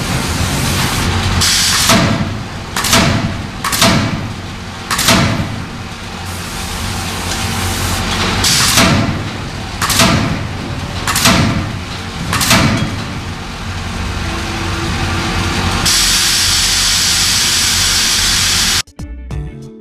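Forging hammer striking hot aluminum in an impression die: eight heavy blows in two runs of four, each about a second apart, over steady shop machinery hum. Near the end a loud steady hiss lasts about three seconds, then cuts off and guitar music begins.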